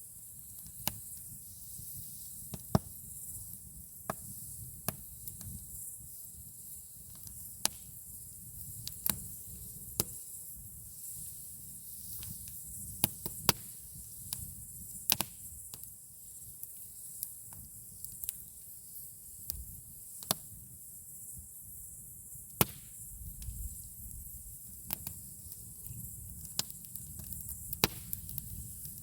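Campfire burning wood: irregular sharp crackles and pops, about one or two a second with a few louder snaps, over a steady low rumble and high hiss.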